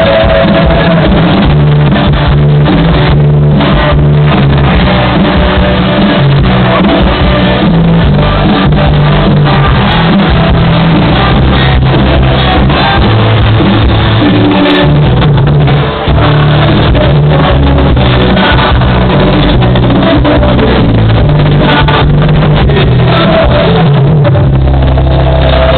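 Loud party music with a steady beat and heavy bass, nearly overloading the recording.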